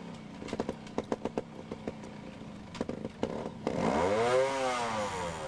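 Two-stroke GasGas trials motorcycle engine working at low revs with sharp clicks and knocks as the bike climbs a steep bank. About four seconds in it is revved hard, rising in pitch and then falling back.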